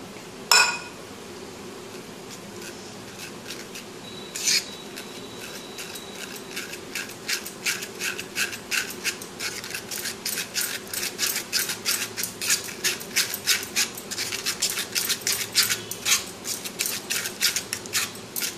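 Steel spoon scraping and pressing mustard paste against the mesh of a small tea strainer, leaving the gritty husks behind. There is a sharp clink about half a second in and another about four and a half seconds in, then from about seven seconds in a quick run of short scrapes several times a second.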